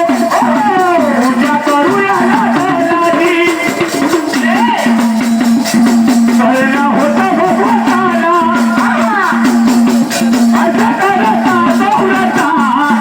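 Devotional song to Mahadev (Shiva) sung with rattling hand percussion, the melody winding over a steady held drone note.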